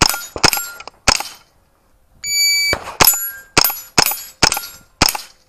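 A .22 rimfire AR-style rifle firing quick single shots at steel targets. There are a few shots in the first second or so; a little over two seconds in, a shot timer gives its half-second start beep, followed by a string of about six shots roughly half a second apart.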